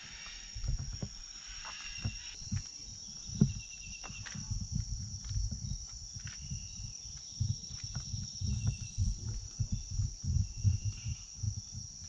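Tropical rainforest insects keep up a steady, high-pitched drone, with a few short trilling calls a couple of seconds in and again near the end. Low thumps from the handheld camera being carried along at a walk come more often in the second half.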